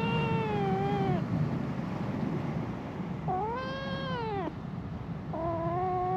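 A cat meowing: three long, drawn-out meows, each rising and then falling in pitch. The first is already under way at the start, and the last, lower one begins about five seconds in.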